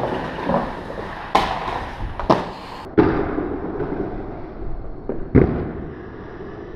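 Inline skate wheels rolling over stone paving, with about four sharp clacks and thuds as the skates hit and land on a stone ledge and the tiles; the loudest knock comes about five seconds in.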